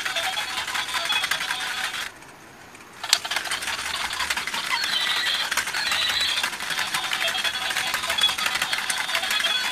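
A battery-powered walking toy horse's small motor and plastic gears running, a dense rapid clicking rattle as it walks in a circle on its tether. The sound stops for about a second near the 2 s mark and resumes with a sharp click.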